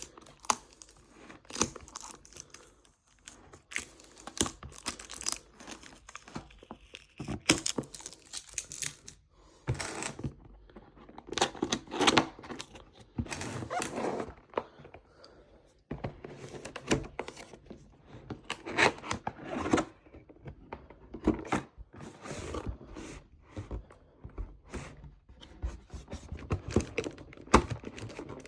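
Keyboard packaging being handled: irregular rustling, crinkling and tearing, with occasional thuds and clicks.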